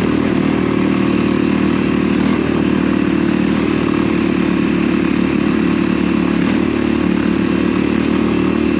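Motorcycle engine running at steady revs under load, climbing a loose gravel track.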